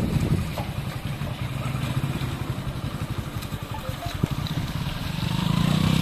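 Motorcycle engine running at low speed, a low pulsing rumble that drops off just after the start and grows louder again near the end.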